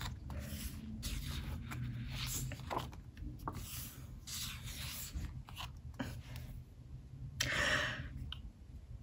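Paper and cardboard rustling and rubbing as an album's photobook and inclusions are handled, with a few light taps and clicks, and one longer rustle near the end.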